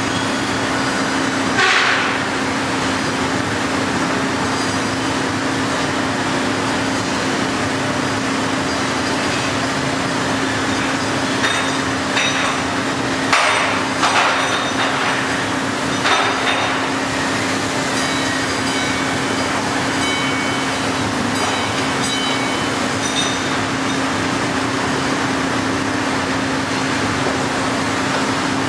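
Heller CNC four-roll hydraulic plate bending roll running as it rolls a metal plate: a steady hum with one constant tone. A few sharp metallic knocks come about two seconds in and several more between about twelve and seventeen seconds in.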